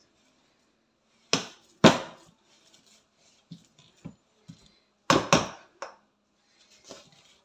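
Metal potato masher knocking and scraping against a stainless steel bowl while mashing boiled potatoes. Two sharp clanks come about a second and a half in, then another group around five seconds, with lighter taps between.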